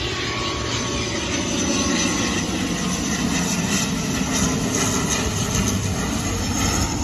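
Steady drone of a high-wing twin-turboprop airliner flying low overhead as it comes in to land.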